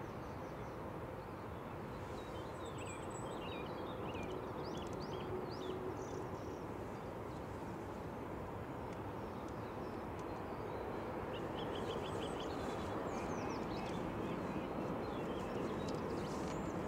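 Boeing 787-9 jet engines at takeoff power heard from a distance, a steady roar of noise that grows slowly louder as the airliner climbs away. Small birds chirp over it, in one spell a couple of seconds in and again from about eleven seconds.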